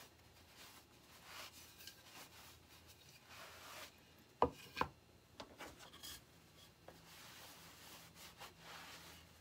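Cloth wiping sanding dust off a painted egg cutout: soft, repeated rubbing swishes, with two sharp knocks in quick succession near the middle.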